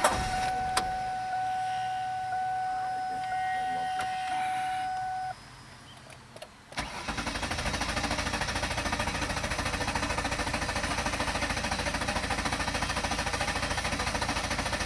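A steady electronic warning chime from the car for about five seconds, then after a short pause the Ford Taurus's starter cranks the engine over in a fast, even rhythm without it firing. The fuel pump fuse is pulled, so the cranking is bleeding the pressure out of the fuel line.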